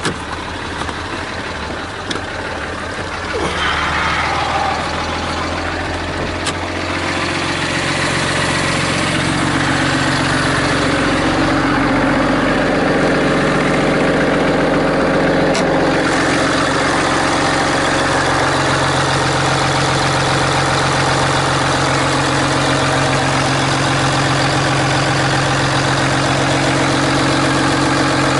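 Ram 2500's 6.7 L Cummins turbo-diesel straight-six idling steadily, louder from about eight seconds in once the hood is open. A few sharp clicks sound in the first seven seconds.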